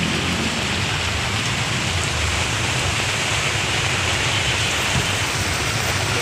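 Heavy rain falling steadily, a continuous hiss of rain on the street and overhead umbrella, with a low rumble of traffic on the wet road underneath.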